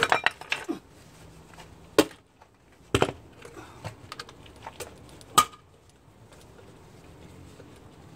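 A few sharp clicks and knocks, a second or two apart, from a tyre inflator gun's chuck being handled and pressed onto a tyre valve to check the pressure.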